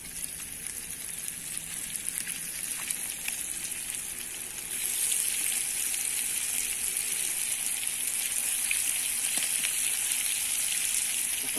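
Flour-dredged fish frying in very hot oil in a skillet over a wood fire: a steady sizzle with small crackles, which grows louder about five seconds in.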